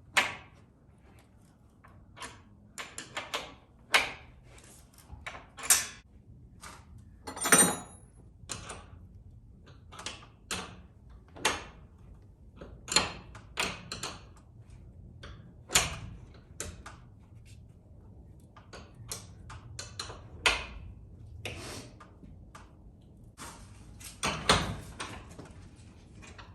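Irregular clinks and knocks of a wrench and metal hardware as nuts are tightened on the bolts of sliding-door hardware. One louder clink about a third of the way in rings briefly.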